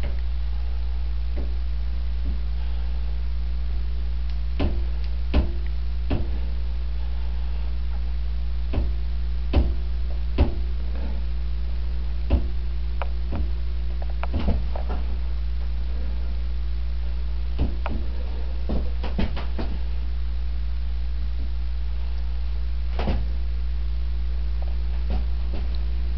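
A steady low electrical hum, with scattered sharp metallic clicks and clinks as chromed fork tubes and triple clamps are handled and knocked together.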